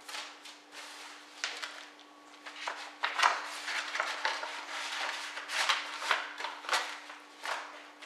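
Sheets of paper rustling and crackling as a stack of documents is leafed through and shuffled by hand, in irregular rustles that come thicker after about three seconds.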